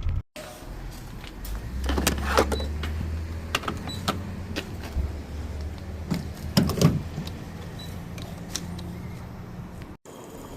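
A low vehicle rumble with scattered knocks and rattles, cut off abruptly near the end.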